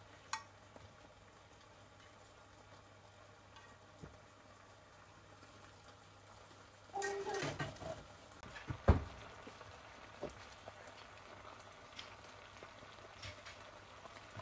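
Faint kitchen handling sounds: light clicks and taps over a low background hiss, a brief voice about seven seconds in, and one sharp knock about nine seconds in.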